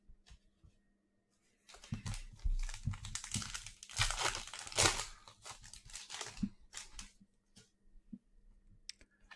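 Plastic crinkling and rustling as trading cards and their packaging or sleeves are handled. It starts a couple of seconds in with many small crackles, is loudest around the middle, and trails off into a few light taps.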